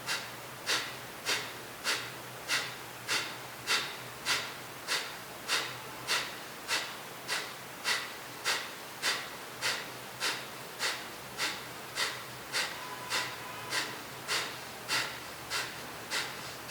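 Kapalbhati pranayama breathing: a man's sharp, forceful exhalations through the nose, driven by the core, in an even rhythm of a little under two per second.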